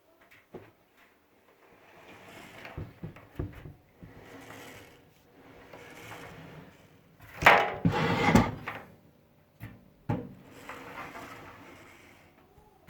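Knocks, scrapes and clunks of dryer parts being handled and moved during a belt replacement, with swells of sliding, scraping noise. The loudest is a cluster of heavy clunks about seven and a half seconds in.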